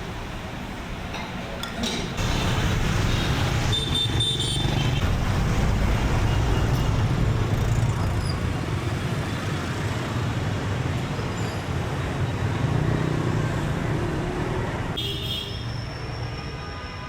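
Street traffic with engines passing close by, swelling about two seconds in and easing off toward the end. Short horn toots sound twice, about four seconds in and again near the end.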